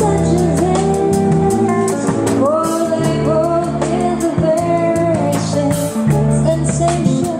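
Live jazz band playing a slow ballad: a long held melody line with vibrato over sustained guitar and bass chords, with steady light ticks keeping time.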